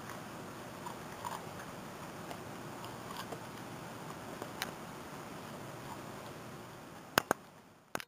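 Siberian husky chewing corn: scattered soft crunches and clicks from its bites over a faint steady room hiss, with two sharp clicks close together near the end.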